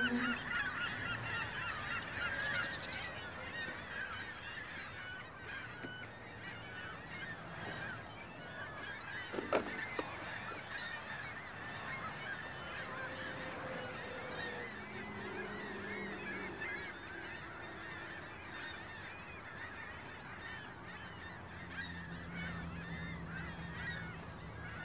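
Geese honking continuously, many calls overlapping. There is a single sharp knock nearly ten seconds in.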